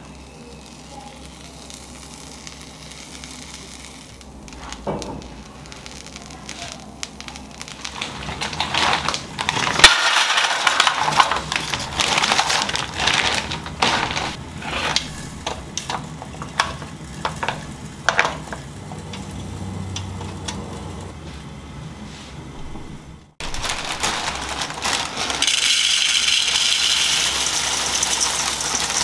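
Kitchen food-prep sounds: irregular crackling and clicks through the middle, then after a cut a steady rustling hiss of dry puffed rice being poured into a steel bowl.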